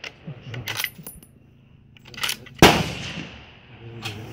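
A Husqvarna M38 6.5x55 Swedish Mauser fitted with an MAE 6-30 ST suppressor fires one shot about two and a half seconds in, a sharp crack with a short decaying tail. Before it, a run of metallic clicks and clinks, typical of the bolt being worked and a spent case ejecting.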